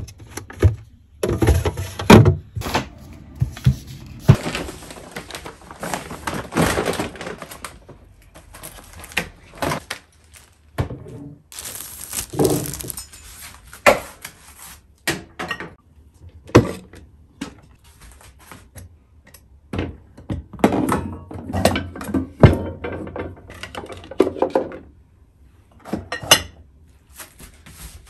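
Household handling sounds: a string of knocks, taps and thunks as objects are picked up and set down, with short rustling and scraping stretches in between.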